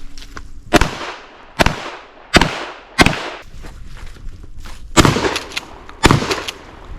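Six gunshots at an uneven pace, four in about two seconds, then a pause of roughly two seconds before two more; each shot leaves a short echoing tail.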